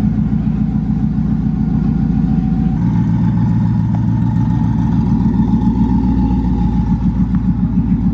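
Ford Mustang GT V8 idling with a steady, deep uneven burble, no revving. The tone shifts slightly a little under three seconds in.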